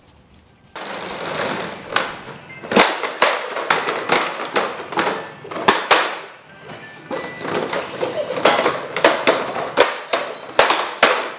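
A plastic toy dump truck pushed across a tiled floor, its hard wheels rolling with a continuous rattle and many sharp clacks and knocks, starting about a second in.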